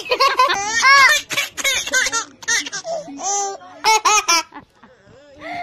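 A young girl laughing hard in a string of high-pitched bursts, dying down about four and a half seconds in.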